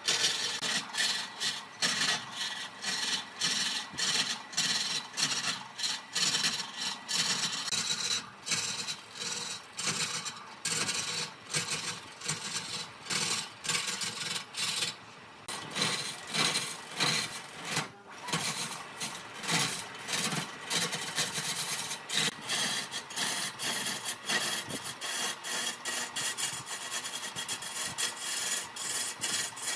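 Repeated rasping strokes of something being rubbed back and forth across a hard surface, about two a second.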